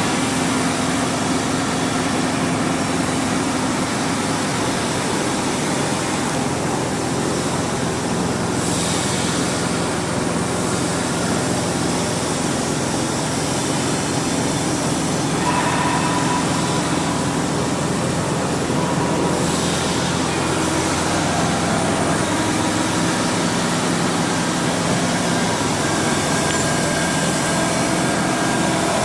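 A CNC press brake's electro-hydraulic power unit running steadily, its motor and hydraulic pump giving a constant hum with a hiss over it.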